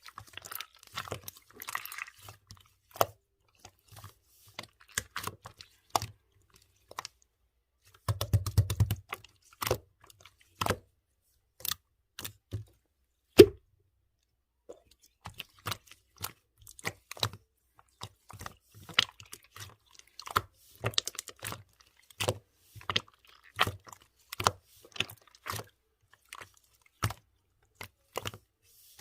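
Clear slime being pressed and worked by hand, giving sticky clicks and small air-bubble pops at irregular spacing. A quick run of crackling pops comes about eight seconds in, and the loudest single pop about halfway.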